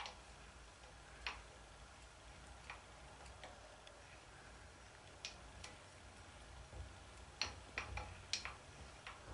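Faint, irregularly spaced clicks and ticks from a milling machine's table being wound along by hand on its handwheel, with more of them in the last couple of seconds.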